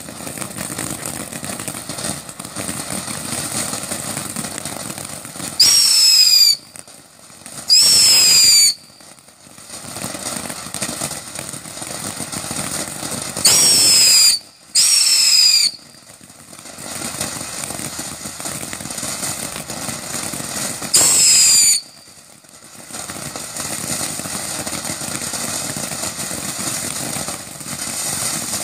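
Black Cat Killer Bees fountain firework spraying sparks with a steady hiss, broken five times by loud, shrill whistles about a second long each: two close together early on, two more in quick succession midway, and a last one later.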